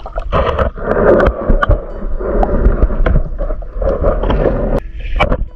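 Underwater sound picked up by a submerged camera: muffled rushing and churning of water with a low rumble and many sharp clicks, from a spearfisher swimming and moving through the water.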